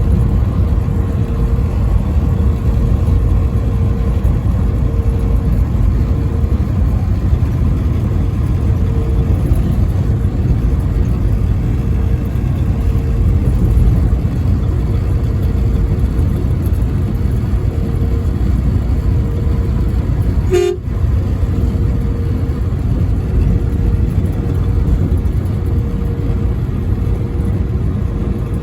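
Truck running at highway speed: a steady low rumble of engine and road noise, with a faint wavering tone under it. The sound dips briefly about twenty seconds in.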